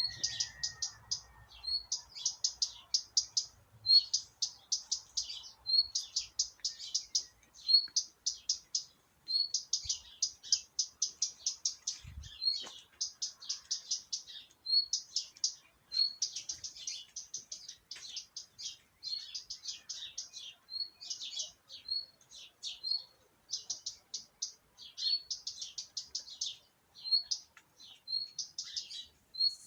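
Small birds chirping and singing: short bursts of rapid high-pitched chirps, each opened by a single clear note, repeating every second or two without a break.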